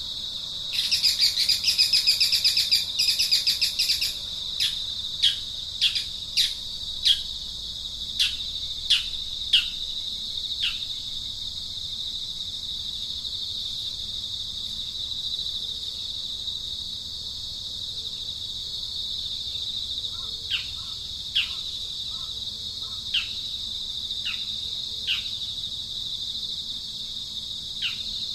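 Birds calling over a steady high-pitched insect drone: a fast, loud chirping trill in the first few seconds, then a series of short downward-sliding chirps, which thin out and return a few at a time near the end.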